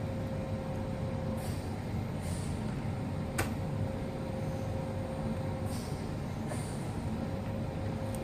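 Steady low background rumble with a thin steady hum that drops out and returns, and a single sharp click about three and a half seconds in.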